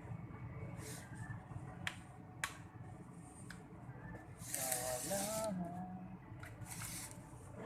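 Handling of a laptop's plastic bottom cover as it is lifted off after prying: a few sharp clicks, then a louder scraping rasp about halfway through and a shorter one near the end.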